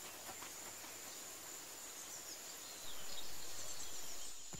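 Faint outdoor nature ambience: a steady, high insect trill over a soft background hiss, becoming a little louder about three seconds in.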